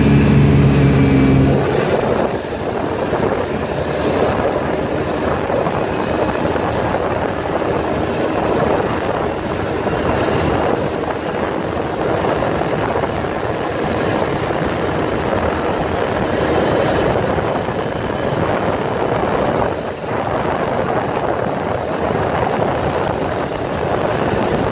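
Polaris side-by-side utility vehicle driving on a dirt road. A steady engine note is heard for the first second or two, then a steady rush of wind and road noise covers the engine.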